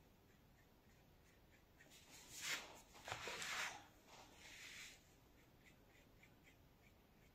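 A sheet of paper slid and turned on a tabletop: a rustling scrape in three short parts, starting about two seconds in and lasting about three seconds. Around it, faint light ticks of a fine brush on paper.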